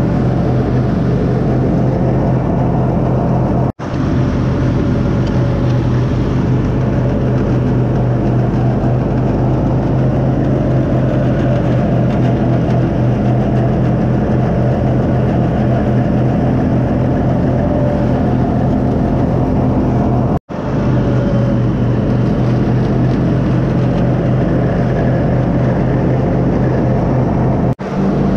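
Zero-turn riding mower's engine running steadily at mowing speed with the blades cutting grass, a constant low hum.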